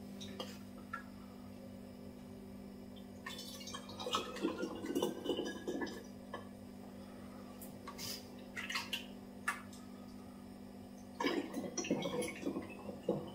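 Thick chilli sauce being poured into glass bottles in three spells, with gurgles, drips and light clinks. A faint tone rises in pitch as a bottle fills. A steady low hum runs underneath.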